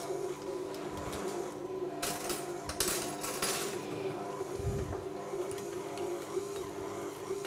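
A metal spoon scraping and clinking in a glass jar as harissa is scooped out, over a steady low hum, with one dull thump about four and a half seconds in.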